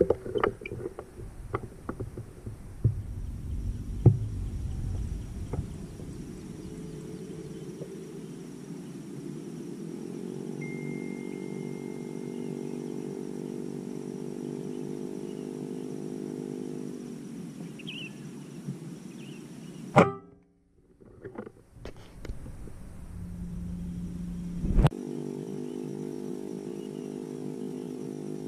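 Air rifle being handled with knocks and clicks, then a single sharp shot about two-thirds of the way in, and after a brief dropout a quieter repeat of the shot; a steady low humming drone runs behind.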